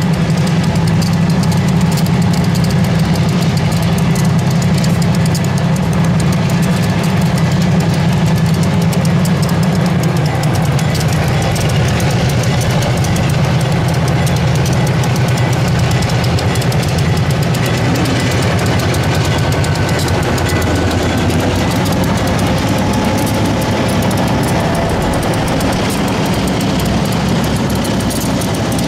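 A pair of EMD SW1500 end-cab switcher locomotives with their diesel engines running as they roll slowly past, a steady low engine rumble that eases a little about a third of the way through.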